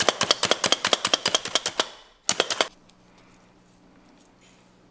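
Hand-pressed plunger food chopper clacking rapidly as it minces red chili peppers, stopping about two seconds in after one last short run of presses. Then only a faint steady hum.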